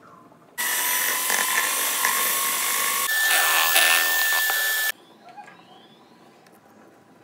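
Electric hand mixer running at speed, its beaters whipping eggs into a creamy batter: a steady motor whine that starts about half a second in, shifts in pitch about halfway through, and cuts off suddenly after about four seconds.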